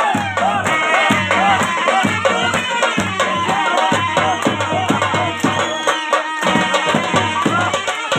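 Gilgit-Baltistan harip folk dance music: a wavering, ornamented melody over a steady, driving drum beat.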